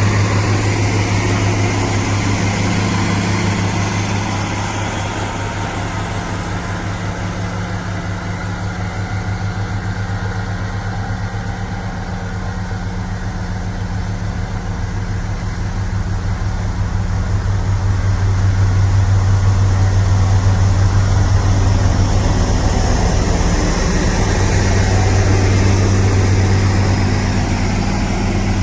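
Diesel engine of an HD850 motor grader running steadily under work. It fades somewhat through the middle and grows louder again after about two-thirds of the way.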